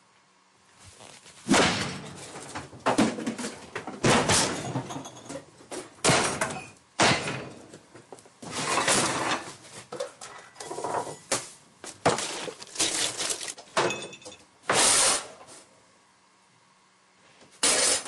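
Furniture doors and drawers slammed and banged over and over, a dozen or more hard thuds a second or so apart, some trailing into rattling or scraping. It goes quiet for about two seconds near the end before another slam.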